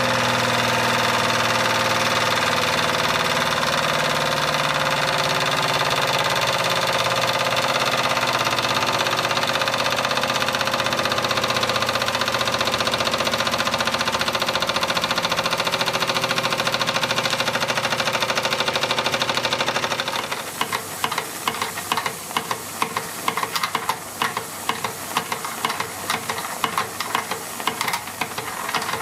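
Wilesco D24 model steam engine running fast, a steady mechanical whirring hum from its spinning flywheel and drive. About two-thirds of the way through it changes to a quieter, rapid clatter of quick regular ticks and chuffs with a light steam hiss.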